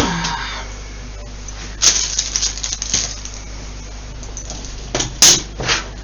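Handling noise as hard objects are moved about on a desk: a run of clicks and rustling about two seconds in, then a few sharp knocks near the end.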